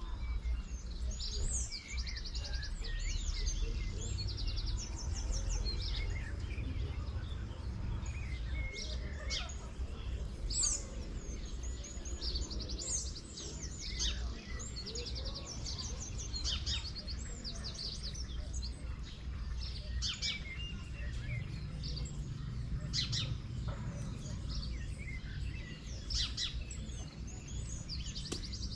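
Several small birds chirping and calling, with repeated short rapid trills among the chirps, over a steady low rumble.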